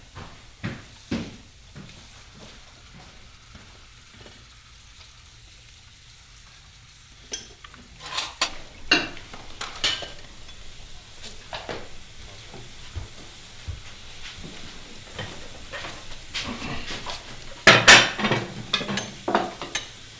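Crockery and cutlery clinking and rattling as dishes are gathered and washed up by hand, with a quieter stretch a couple of seconds in and the loudest clatter of plates near the end.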